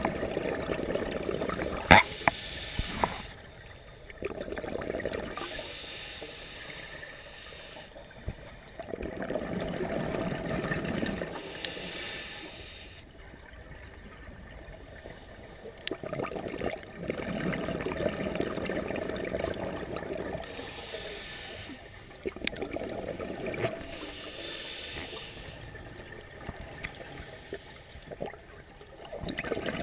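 Scuba diver breathing through a regulator, heard underwater through the camera housing: bursts of exhaled bubbles bubbling and gurgling for a few seconds at a time, about every six or seven seconds, with quieter spells between for the inhalations. A couple of sharp clicks about two and three seconds in.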